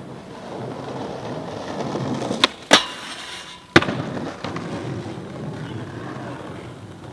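Skateboard wheels rolling over stone paving and building up, then a pop, a loud clank as the board hits a steel handrail, about a second of metal grinding and ringing, and a hard landing about a second and a half later. The rolling noise then carries on and fades out.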